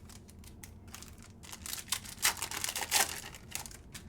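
Rapid crinkling and tearing of a trading-card pack wrapper as it is ripped open and the cards are handled. The cluster of rustles and clicks starts about one and a half seconds in, is loudest in the middle and dies away near the end.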